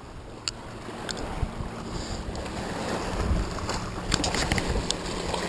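Small waves lapping and splashing against a rocky shoreline, with wind rumbling on the microphone and growing louder. A few sharp clicks cut through it.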